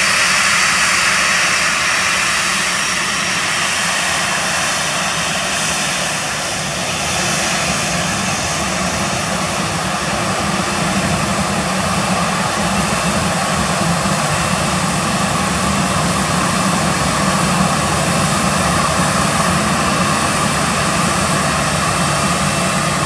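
Boeing 737-800's CFM56-7B turbofan engines running at low taxi power as the airliner taxies: a steady rushing jet noise with a thin high whine, easing slightly about six seconds in and then holding steady.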